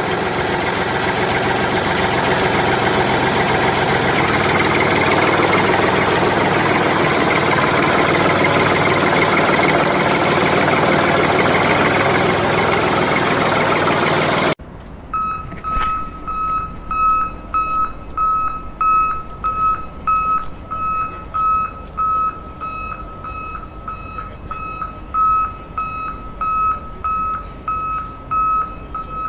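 A small engine running steadily and loudly. About halfway through it cuts off abruptly, and a single-pitch electronic beeper sounds in an even series of short beeps, like a machine's reversing alarm.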